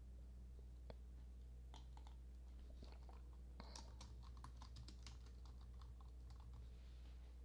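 Faint computer keyboard typing: a quick run of light key clicks starting about two seconds in, over a low steady electrical hum.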